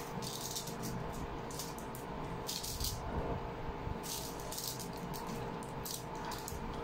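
Close-miked crunchy chewing of crispy fried dried fish (tuyo), with irregular short crisp crunches a few times a second.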